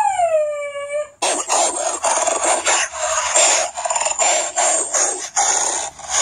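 A dog's whine falling in pitch, cut off about a second in by a long rough stretch of dog snarling and growling like a dog fight.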